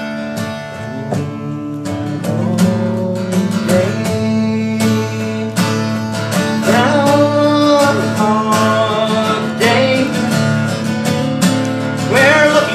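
Steel-string acoustic guitar strummed in a steady rhythm, with singing over it from about two seconds in.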